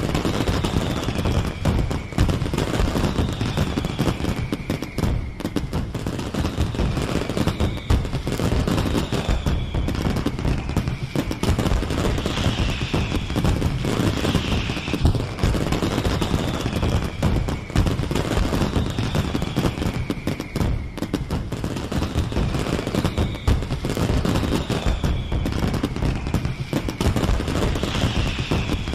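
A fireworks display: a dense, continuous barrage of bangs and crackles, with high whistles falling in pitch every second or two.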